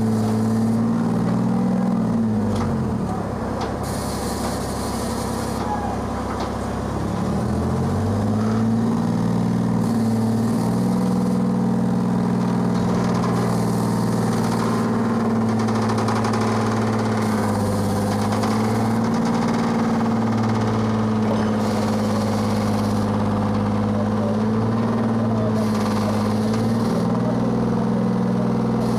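Pettibone mobile crane's engine running steadily. About two seconds in its revs sag, and about five seconds later they pick back up. A short hiss comes and goes every few seconds.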